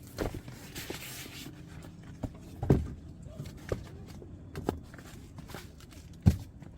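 Gear being handled and moved: a few separate dull thumps and knocks, the loudest near the end, with a short rustle about a second in.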